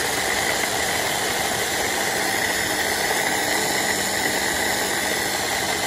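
Electric mini food chopper running steadily, its blade whirling four tomatoes into a purée inside the covered plastic bowl.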